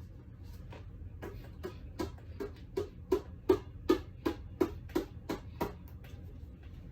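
A row of short, regular clicks, about three a second, that grow louder toward the middle and then fade.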